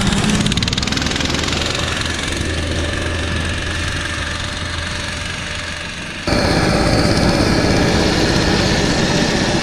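Small engine of a motorized snow tug (motor dog) running under way, a steady drone. About six seconds in the sound cuts abruptly to a louder stretch of engine noise.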